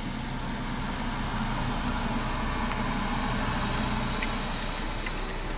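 A vehicle engine idling: a steady low hum with an even hiss over it.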